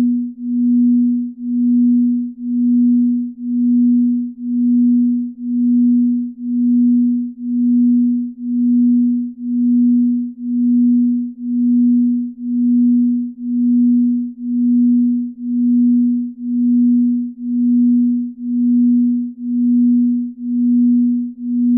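Binaural-beat sleep tone: a single low, pure, steady tone that swells and fades evenly about five times every four seconds, as two slightly detuned tones beat against each other.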